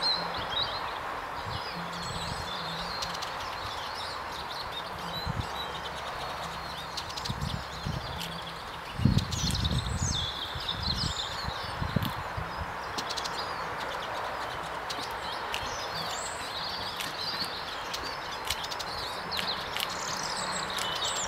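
Small songbirds chirping and singing over a steady background hiss of outdoor noise, with a few low thumps near the middle.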